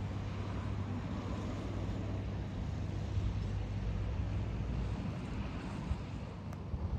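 A motor cruiser's inboard engine running with a steady low hum as the boat moves past on the river, over an even rushing background.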